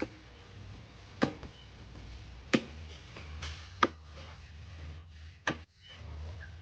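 Five sharp knocks, spaced about a second to a second and a half apart, over a steady low hum.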